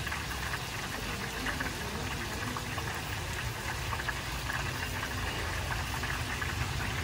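Food deep-frying in a large wok of hot oil: a steady sizzling and bubbling with fine crackle.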